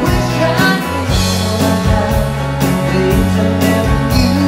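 Live band music: two electric guitars playing together over a moving bass line and a steady beat.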